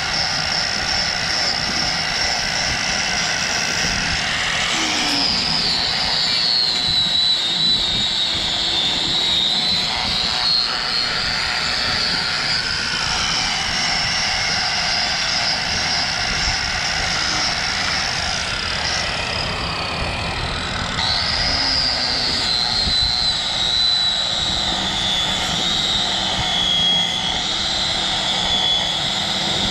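Angle grinder with an M.E. Miller tire-shaving disc, shaving rubber from the lugs of a tractor pulling tire. Its high motor whine sags in pitch as the disc bears into the rubber and climbs back when eased off, most sharply about two-thirds of the way through.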